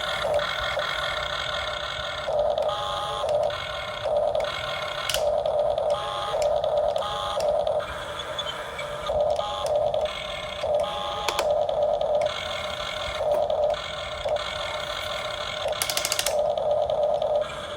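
Electric motors of an RC model excavator whining in short spurts, starting and stopping again and again as the excavator is worked, over a steady hiss. Near the end one spurt has a higher, rasping edge.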